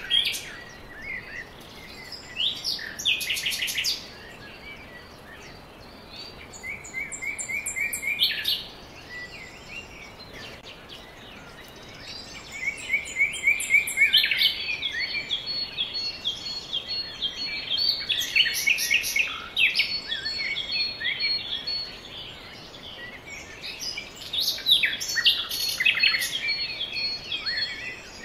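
Birds singing and calling: quick high chirps and trills in bursts, the busiest stretch in the middle, over a faint steady outdoor hiss.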